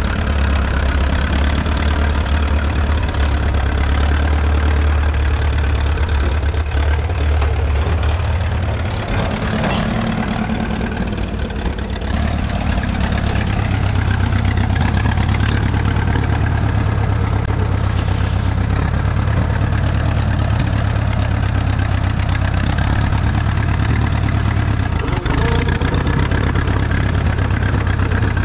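1936 Farmall F-12 tractor's four-cylinder engine running steadily as the tractor is driven. The low engine note eases about nine seconds in and picks up again about three seconds later.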